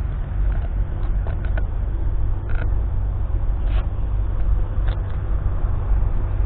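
McCormick X7.680 tractor's 6.7-litre six-cylinder engine working under load, pulling a five-furrow reversible plough through the soil. It is heard as a steady low rumble from on the plough, with scattered short clicks and knocks.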